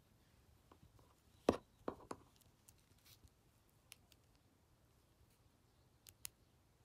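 Faint scattered clicks and taps of small objects being handled: three close together about a second and a half in, the first the loudest, and two sharp high clicks about six seconds in.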